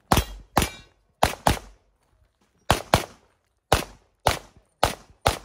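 Pistol shots fired in quick pairs, about ten sharp cracks in all, each with a short echo trailing off.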